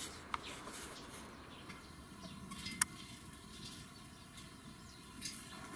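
Faint short clucks and chirps from a small flock of hens and a rooster foraging, with a single sharp click a little under three seconds in.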